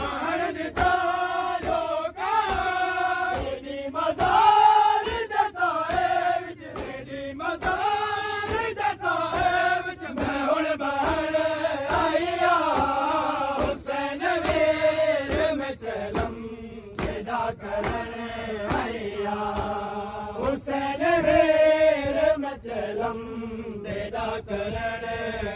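Men chanting a Saraiki/Punjabi noha together, kept in time by a steady beat of sharp slaps: open hands striking bare chests in matam.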